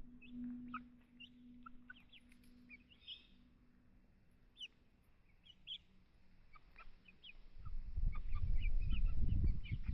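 Birds chirping in short, high, scattered calls, with a low ringing tone fading out in the first second. From near eight seconds in, a louder low rumbling rustle with thumps close to the microphone takes over.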